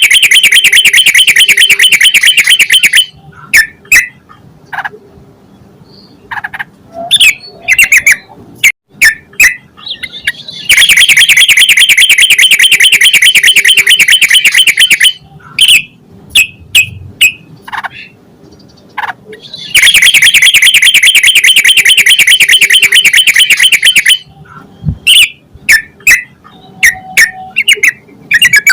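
Yellow-vented bulbul (trucukan) calling. Three long, loud runs of fast chattering notes, each a few seconds long, with short scattered chirps in the pauses between them.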